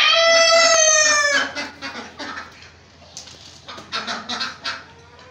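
A rooster crowing: one long held call that falls in pitch at the end and stops about a second and a half in. Short clucks from the flock follow.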